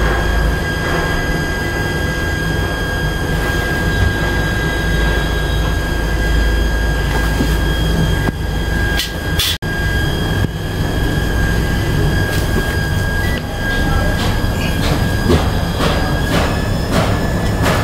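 Steady low machine hum with a high, steady whine running through it, and a few clicks and knocks in the last few seconds.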